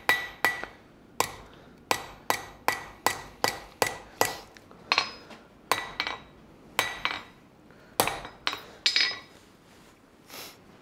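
Blacksmith's hand hammer striking a red-hot steel bar on an anvil, about twenty blows at an uneven, slowing pace, many with a short ring from the anvil, while rounding off the corners of a forged leaf blank. The blows stop near the end, followed by one softer knock.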